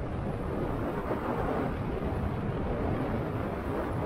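Steady rush and low rumble of wind and riding noise on a head-mounted action camera while cycling.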